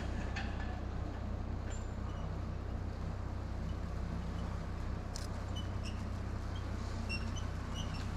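An engine running steadily with an even low hum, most likely the winch engine of a cable-logging yarder. A few faint short high chirps come near the end.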